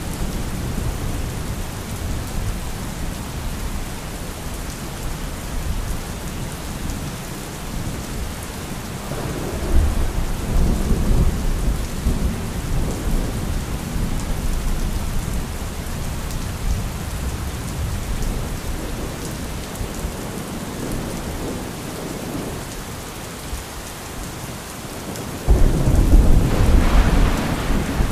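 Thunderstorm: steady rain with rolling thunder. There is a rumble about ten seconds in and a louder clap that starts suddenly near the end.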